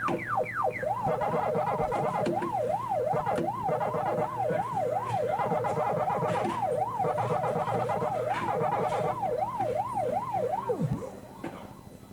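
Siren sound effect: a few quick falling sweeps, then a fast, even up-and-down yelp of about two and a half cycles a second, ending with a downward sweep near the end.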